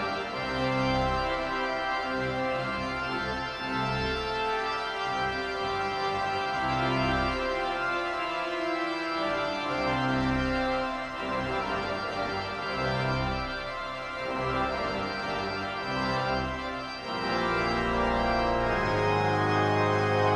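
Pipe organ playing a hymn-like piece in sustained chords over a deep pedal bass, the chords changing every second or so and broadening into fuller, longer-held chords near the end.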